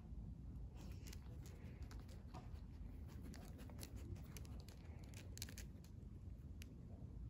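Husky sniffing along the pavement: short, faint sniffs and small ticks scattered through, over a steady low rumble.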